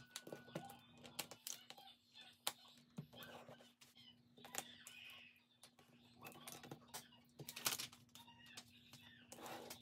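Plastic Lego bricks clicking and clattering on a tabletop as they are handled and pressed together, with long acrylic fingernails tapping on the plastic. The clicks are quiet and come irregularly, with a few short rustles between them.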